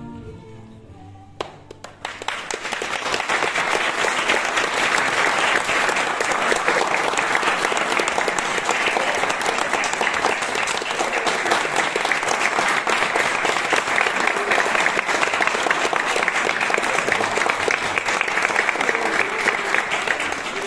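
Audience applauding steadily for close to twenty seconds. It breaks out about a second and a half in, as the last notes of a sung piece die away, and stops abruptly at the end.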